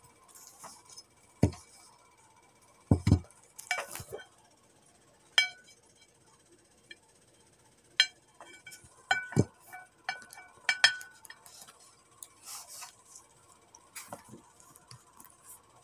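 A ceramic dinner plate being handled and set down on a table: scattered sharp clinks and a few duller knocks, about ten in all.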